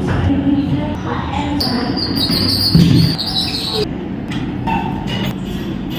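Indistinct background voices over busy room noise, with a brief dull thud about three seconds in.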